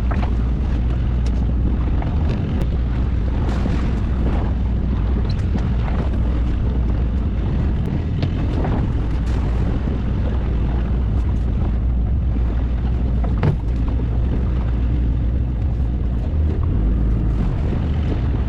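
Fishing boat's engine running steadily with a low hum, with scattered knocks on deck and one sharper knock about 13 seconds in.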